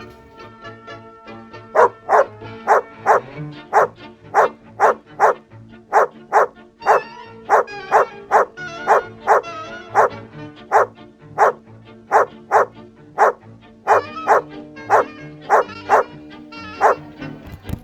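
A dog barking over and over, about two barks a second, with background music underneath.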